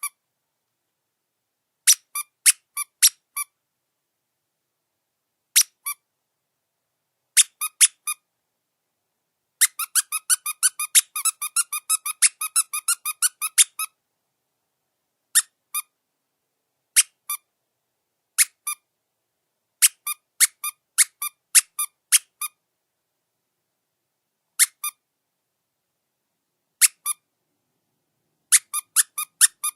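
Squeaky rubber dog chew toy squeezed again and again: short high-pitched squeaks in single squeezes and quick clusters of two to four, with a rapid run of many squeaks about a third of the way in, and pauses of dead silence between.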